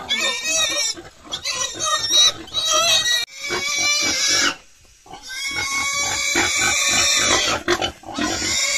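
Pigs squealing loudly, a string of long, high-pitched squeals one after another with short breaks between them.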